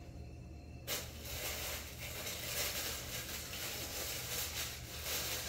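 Tissue paper rustling and crinkling as a shoe box is unpacked, starting suddenly about a second in. A low steady hum lies underneath.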